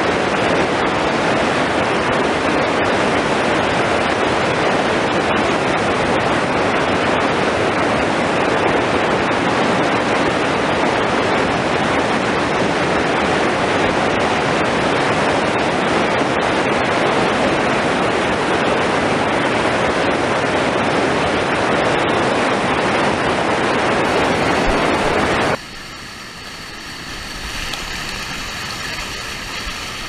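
Small river waterfall pouring over rock: a steady, loud rush of falling water. About 25 seconds in it cuts suddenly to a quieter, muffled water sound, heard from right in the falling water.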